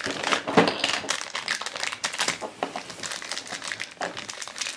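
Thin plastic packaging crinkling as hands tear open a blind-bag pouch and unwrap a miniature toy from its clear plastic wrapper, with rapid irregular crackles throughout.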